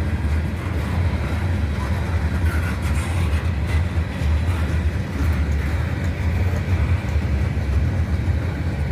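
Freight train rolling past: a steady low rumble of the cars on the rails, with a few faint clanks.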